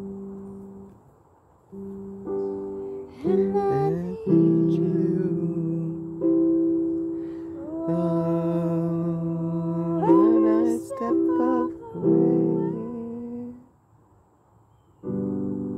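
Portable electronic keyboard playing slow, held chords of a worship song, with a voice singing a gliding melody over them from about three seconds in. The music stops briefly near the end, then the chords start again.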